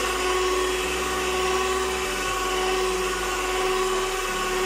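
Electric hand mixer running steadily with its dough hooks churning a stiff bread dough: an even motor whine that holds one pitch.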